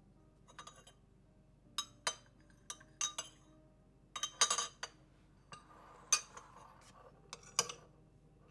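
Kitchenware being handled: dishes and utensils set down and knocked together in about a dozen sharp, irregular clinks, with a short soft rustling stretch about two-thirds of the way through.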